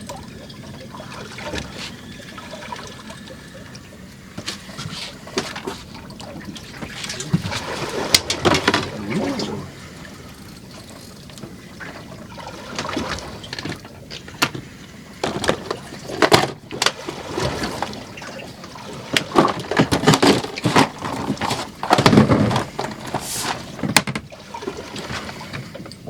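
Sea water splashing and sloshing against a small boat in irregular surges, with sharp knocks among them; the loudest surges come about eight seconds in and again in the second half.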